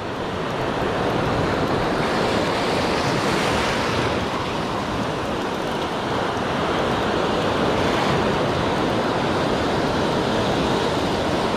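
Sea surf breaking and washing in a steady rush of white water, with wind on the microphone.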